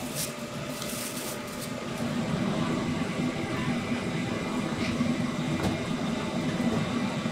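A thin plastic carrier bag rustling as a clear plastic takeaway box is slipped into it during the first second and a half, over a steady background din of a busy night market with crowd voices, which grows louder about two seconds in.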